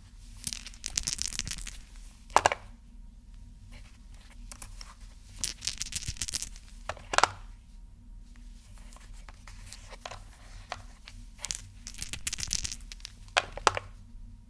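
A handled object making a dense crackling noise in three stretches of one to two seconds, each followed by a sharp snap.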